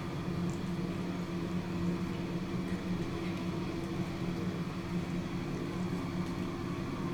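A steady machine hum at a constant low pitch, unchanging throughout.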